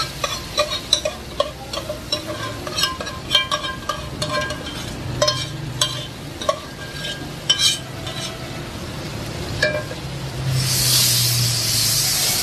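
A metal ladle scrapes and knocks repeatedly against an aluminium cooking pot as a fried onion and carrot mixture in ghee is scraped out into a larger pot. Near the end a steady sizzling hiss sets in as the oily mixture sits in the hot pot.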